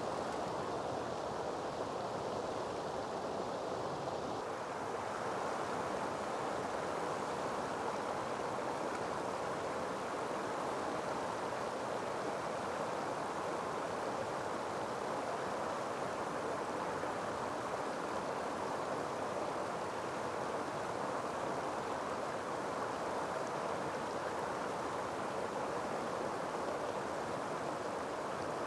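Steady rushing of flowing shallow river water, an even hiss with no break.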